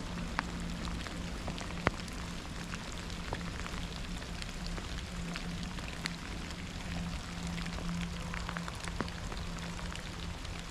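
Steady rain, with single drops ticking sharply close by, the sharpest about two seconds in, over a steady low hum.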